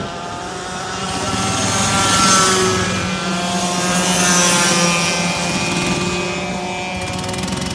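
Racing karts' Yamaha KT100 100cc two-stroke engines running at high revs as karts pass by. The sound swells to a peak about two seconds in and again about four and a half seconds in, then fades.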